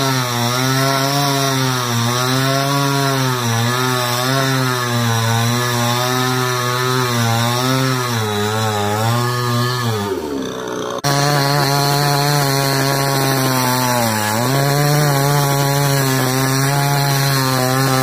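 Chainsaw cutting into the base of a standing tree trunk, its engine running at high revs with the pitch sagging and recovering as the chain bites under load. About ten seconds in the revs fall away, then the saw cuts back in at full speed and keeps cutting, with one more brief dip in pitch.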